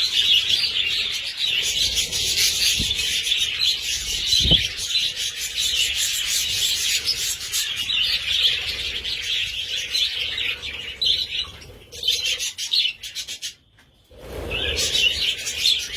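A flock of lovebirds chattering, many shrill overlapping chirps. The sound drops out briefly near the end.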